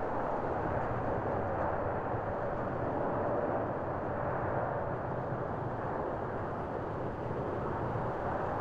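Airbus A350-900's Rolls-Royce Trent XWB jet engines running during the landing rollout on the runway: a steady jet rumble with a faint whine in the middle.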